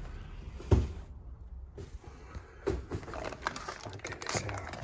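Handling noise on a wooden workbench: one sharp knock about a second in, then irregular crinkling and small knocks of clear plastic packaging bags from about three seconds on.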